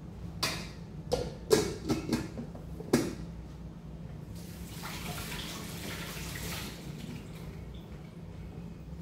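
A few sharp knocks and clatters of things being handled at a kitchen sink, then the faucet runs water into the sink for about three seconds, starting about four seconds in.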